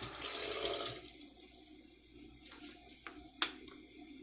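Water being poured for about a second, then stopping, followed by a few light clicks and one sharper knock about three and a half seconds in.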